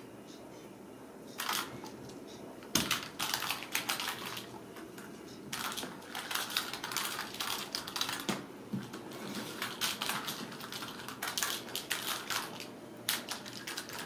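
Plastic lattice ball cat toy on a wand wire, rattling and clattering in quick bursts of clicks as kittens bat at it and it skitters over the floor and rug.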